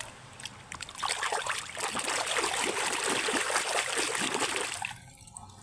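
Water running and splashing over a muddy toy animal as it is rinsed clean, starting about a second in and stopping about five seconds in.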